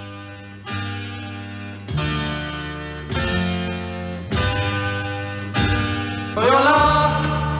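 A song playing through the Sharp GF 4500 radio cassette player: strummed guitar chords in the intro, one about every second and a quarter, growing steadily louder. A gliding melodic line comes in near the end.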